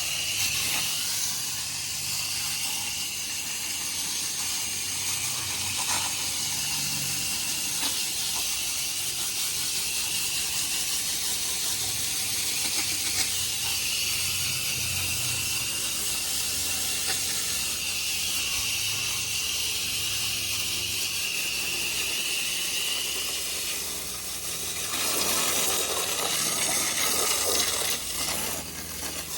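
Water spraying onto a clogged air-conditioner condenser coil to wash it out: a steady hiss that grows louder and fuller about 25 seconds in.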